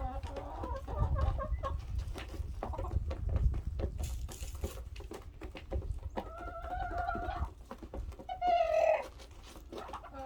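Chickens clucking in the coop: short clucks early on, then two longer calls, the second, about 8½ seconds in, the loudest. Many small taps and scratches run under them.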